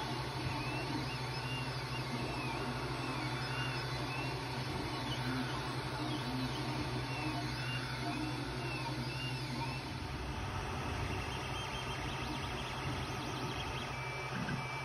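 Creality Ender 3 Pro 3D printer running a print: a steady fan hum, with the stepper motors whining in short rising-and-falling glides as the print head traces the part.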